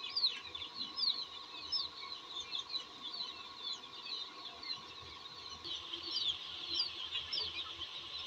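A flock of young chickens peeping all at once: many short, high, falling chirps overlapping without a break. A faint steady hum runs underneath.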